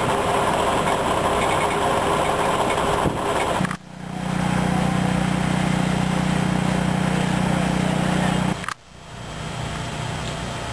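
Engines running steadily in three spliced shots, each break a sudden cut; the middle shot holds the loudest, a steady low engine hum.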